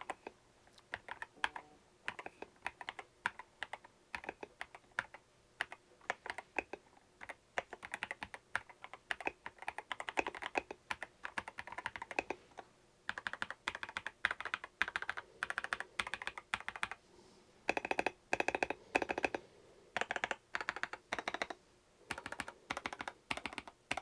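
Typing on an Ajazz AK966 gasket-mounted mechanical keyboard: runs of quick keystrokes broken by short pauses, with a well-dampened sound.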